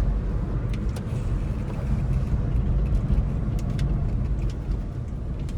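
Inside the cabin of a 2008 Maruti Swift Dzire on the move: a steady low rumble of its diesel engine and road noise, with a few faint clicks. The engine runs smoothly and quietly on its new timing belt.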